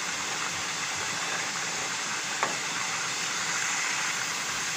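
Steady hiss of a large pot of salted water heating almost to the boil, being stirred with a spatula, with one light tap of the spatula against the pot about halfway through.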